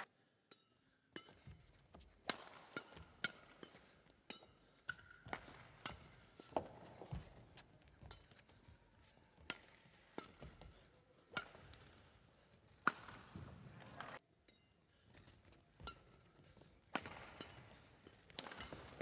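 Badminton rally: rackets smack the shuttlecock in sharp, irregular hits about a second apart, with short squeaks of court shoes on the floor between them.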